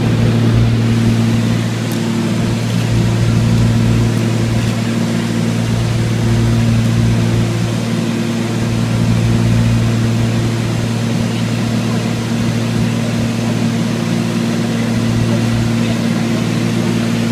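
Steady drone of a light plane's engine and propeller heard from inside the cabin in cruise, a deep even hum over a rushing noise that swells and eases slightly now and then.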